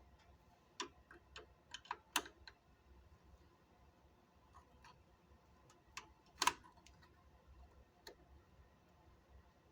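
Scattered light clicks and taps of parts being handled and worked into position on a car's headlight assembly, with the sharpest knock about six and a half seconds in.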